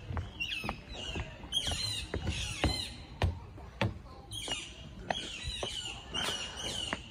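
Birds chattering in repeated high, squeaky calls, in clusters of short chirps, over footsteps on stone paving.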